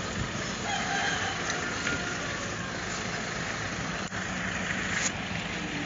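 Steady rumble of vehicle engines idling outdoors, with faint voices murmuring underneath.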